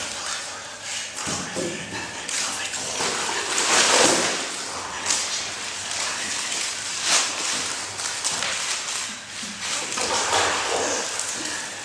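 A man's breathy shouts and gasping breaths, coming in uneven surges every second or two; the loudest is about four seconds in.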